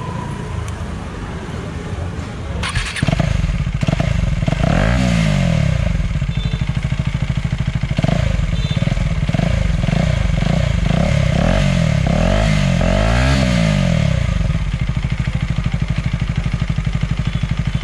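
KTM Duke's single-cylinder engine starting about three seconds in, then revved in a string of quick blips that rise and fall. It settles to a steady idle near the end: an exhaust sound check.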